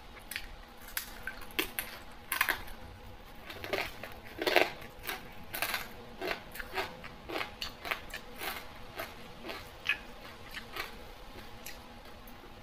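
Someone eating, with irregular crunchy bites and small clicks of utensils on dishes, several a second. The sounds come loudest about two and a half and four and a half seconds in.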